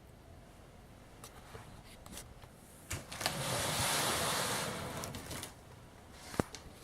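Handling sounds: a few light knocks and clicks, about two seconds of rustling or scraping in the middle, and one sharp click near the end.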